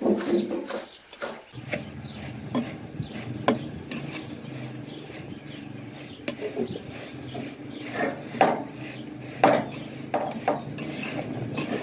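Wooden spoon stirring and scraping flour in an aluminium pot, with irregular scrapes and knocks against the pot's side. A steady low hum starts about a second and a half in.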